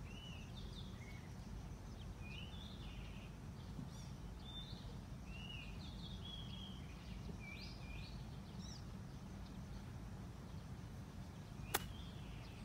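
Birds chirping over a steady low outdoor background. About a second before the end, a single sharp click as a golf club strikes the ball on a short pitch shot from beside the green.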